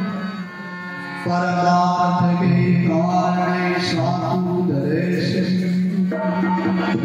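Harmonium and a man singing a devotional bhajan, the voice and reeds rising to full strength about a second in.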